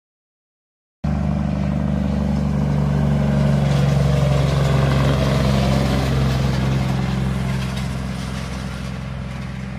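Semi-truck's diesel engine pulling a tanker trailer past at road speed, a steady low drone that starts suddenly about a second in, is loudest at about four seconds, then slowly fades as the truck drives away.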